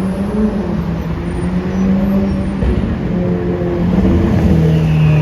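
Ferrari 488 Pista's twin-turbo V8 running through its exhaust, its pitch wavering slightly and growing a little louder toward the end. Near the end a high turbo whistle comes in over the engine note.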